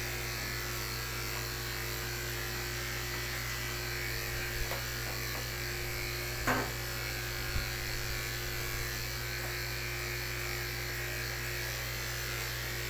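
Corded electric dog grooming clippers running with a steady hum as they cut through a dog's matted coat. A brief louder sound breaks in once about six and a half seconds in.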